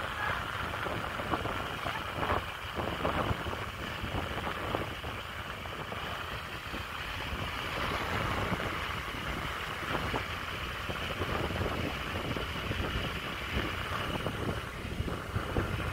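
Wind buffeting the microphone of a moving motor scooter, with the scooter's running and road noise beneath.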